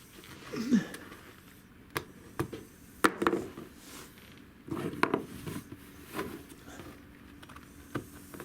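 Irregular light knocks and thumps, a handful of sharp taps spread across several seconds, with a brief falling sound near the start.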